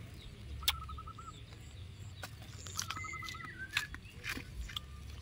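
Sakub ram grazing, with sharp clicks and snaps of weeds being torn and chewed. A bird repeats a short warbling phrase twice, and high, brief chirps sound in the background.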